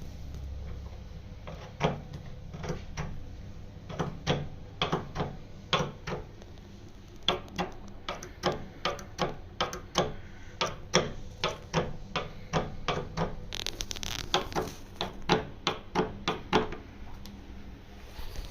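An irregular run of sharp knocks and clicks, roughly one or two a second, from hand work on loft ladder fittings, over a steady low hum.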